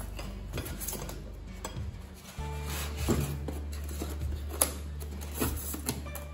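Background music with a steady low bass, and several sharp clicks and knocks in the second half.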